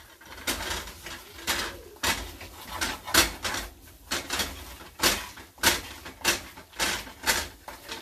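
Spatula scraping and pressing a sticky rice mixture in a frying pan, in short sharp strokes about once or twice a second.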